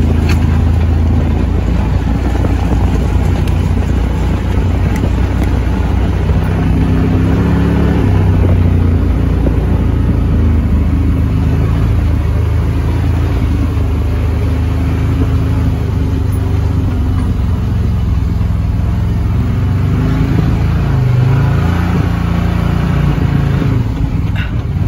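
ATV engine running under way, loud and continuous, its pitch rising and falling a few times with the throttle.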